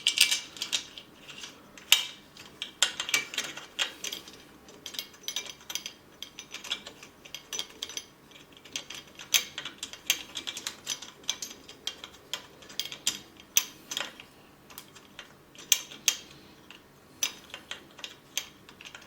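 Metal bolts being screwed by hand to fit metal blocks onto a 3D printer's aluminium frame, with small metal parts being handled: irregular, closely spaced metallic clicks and clinks throughout.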